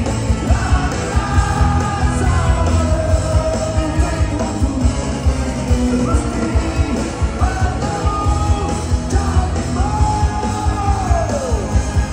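A rock band playing live: a man singing at the microphone over electric guitar and a steady beat, with a held note that bends down near the end.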